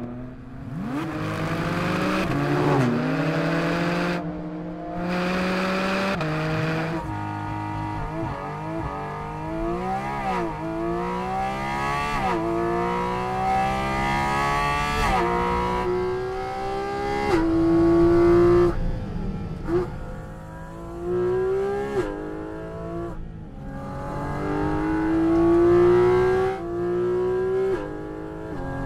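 Porsche 718 Cayman GT4 RS's naturally aspirated 4.0-litre flat-six at full throttle on track. Its pitch climbs steadily through each gear and drops sharply at every upshift, with a few quick rev blips between. The sound cuts abruptly between passes several times.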